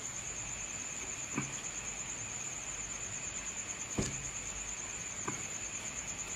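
Crickets trilling steadily at a high pitch, with a few faint clicks and a light knock about four seconds in from the knife jig being handled.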